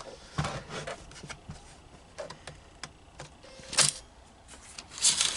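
Irregular plastic clicks and taps from handling a laptop, with one sharp click a little before four seconds in and a quick run of louder clicks near the end.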